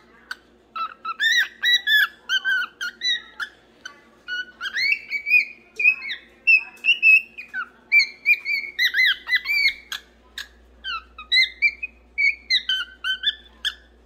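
Cockatiel singing: a long run of short whistled notes that rise and fall in pitch, broken by brief pauses.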